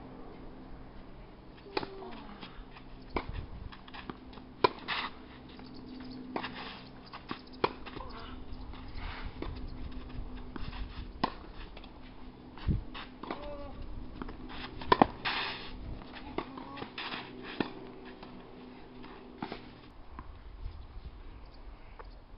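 Tennis rally on a clay court: sharp pocks of rackets striking the ball, with ball bounces, at irregular intervals of one to three seconds. Twice there are short scuffs of shoes on the clay, over a faint steady hum.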